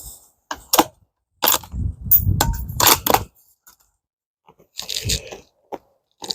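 Bolt-action rifle being handled between shots: a string of sharp metallic clicks and clacks, with a longer rumbling scrape and clatter about two seconds in.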